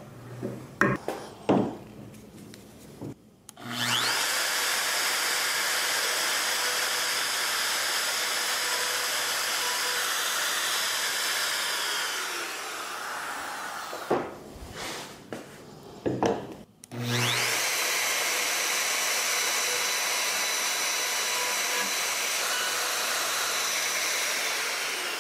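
Domino joiner cutting mortises in red oak. A few light taps and clicks come first, then the motor runs steadily for about eight seconds and spins down. After a short pause with a few knocks, it runs again for about eight seconds and spins down near the end.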